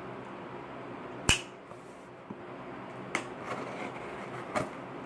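A cardboard mailing box being handled and cut open with a knife: one sharp click a little over a second in, then a few softer knocks and faint scraping.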